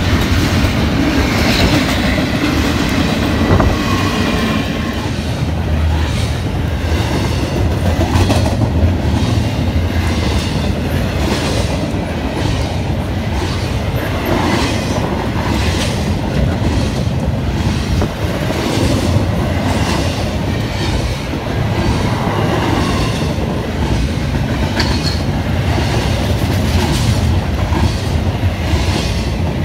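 Double-stack intermodal freight train's container well cars passing close by: a steady rumble of steel wheels on rail, with a regular clickety-clack as the wheels cross rail joints.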